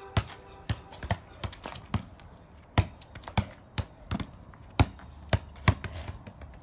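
Sharp, irregular clicks on concrete, roughly two a second, from a border collie's claws as it walks about on the pavement.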